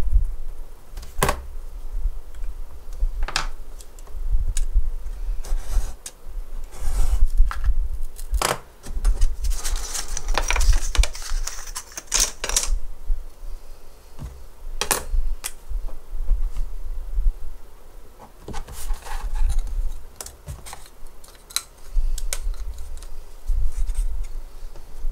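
Handling sounds at a desk: small cut wooden pieces clicking and tapping against each other and on the wooden tabletop, as scattered single taps. A few seconds of scratchy rubbing come about ten seconds in.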